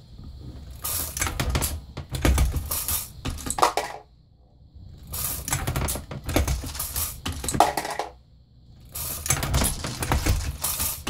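Lee Load-Master progressive reloading press being cycled by its handle while loading 9mm: metallic clicking and clinking of the press mechanism and brass, in three bursts a few seconds apart.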